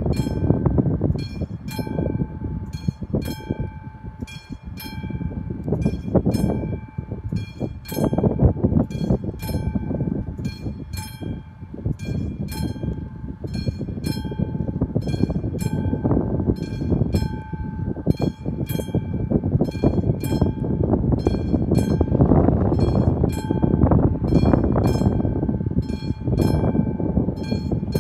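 Level-crossing warning bell ringing in regular, evenly spaced strikes, sounding while the crossing's red lights flash to warn of an approaching train. A loud, uneven low rumble runs underneath.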